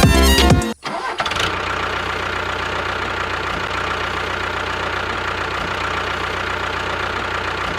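Music cuts off, and about a second in a small motor starts and runs steadily, likely the home-built mini bulldozer's motor.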